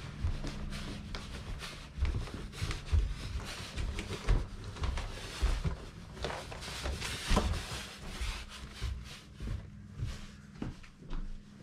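Footsteps thudding up carpeted stairs while a large cardboard TV box, carried upright, rubs and scrapes as it goes.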